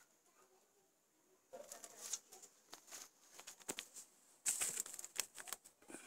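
Close rustling and crackling, an irregular run of clicks and scrapes that starts about a second and a half in and is loudest around four and a half seconds in, as plants are brushed and the phone is handled near its microphone.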